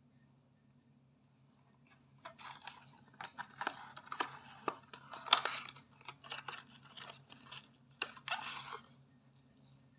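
Paperboard carton being handled and opened by hand: a run of rustles, scrapes and sharp clicks of the cardboard flaps, starting about two seconds in and stopping about a second before the end.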